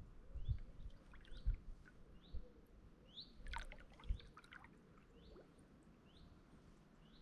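A songbird repeats a short chirp about once a second, with a quick cluster of chirps about three and a half seconds in. Low dull thuds from kayak paddling come in the first few seconds, then fade.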